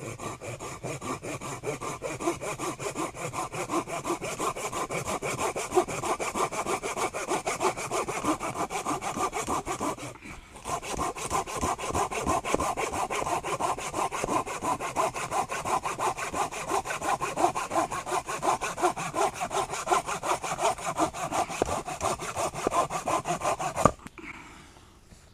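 Silky Pocket Boy folding saw with a 13 cm curved blade cutting through a thick dead branch in fast, even push-pull strokes. There is a short pause about ten seconds in, then steady sawing until the cut ends about a second before the end.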